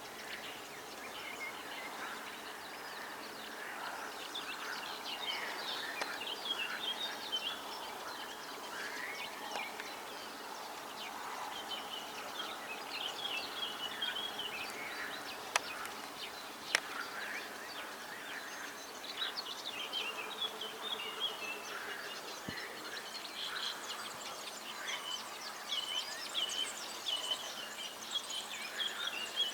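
Mallard ducklings peeping: many short, high chirps in quick runs throughout, over a steady outdoor background, with two sharp clicks a little past the middle.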